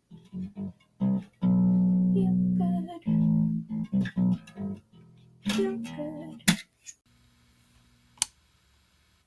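Guitar playing a run of separate plucked notes that close out a song, stopping about five and a half seconds in. Then a sharp click, and a second, fainter click a little over a second later over a faint hum.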